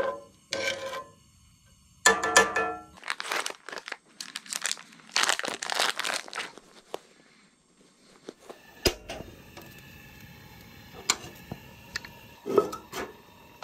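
Plastic food packaging crinkling and tearing as a package of smoked sausage is opened, a run of loud crackles lasting a few seconds. Then, from about nine seconds in, a quieter steady hiss with a few sharp clicks as sliced sausage sizzles on a camp-stove griddle.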